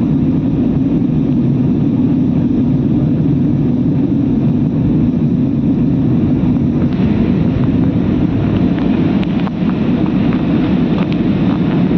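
Steady low drone of an aircraft in flight, heard inside the cabin: engine and air noise, even and unbroken.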